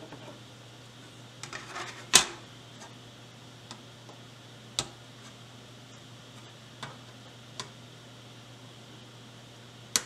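Xcelite flush cutters snipping the leads of soldered components on a circuit board: separate sharp clicks a second or two apart. The loudest is a knock about two seconds in, after a short patter of small handling clicks.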